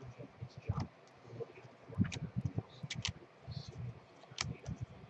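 Baseball trading cards being handled and flipped through one by one: scattered soft clicks and taps with brief papery swishes.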